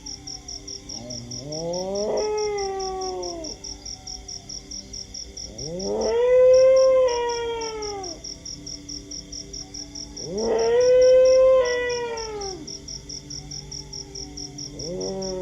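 Dogs howling: four long howls, each rising and then falling in pitch, the two in the middle the loudest and sung by two dogs together, the last starting near the end. Underneath, crickets chirp in a fast, steady pulse.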